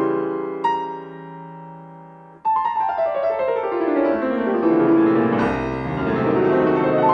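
Solo piano background music. A couple of struck notes and a held chord fade away; then about two and a half seconds in a new chord sounds and a descending run of notes swells into a fuller, ringing passage.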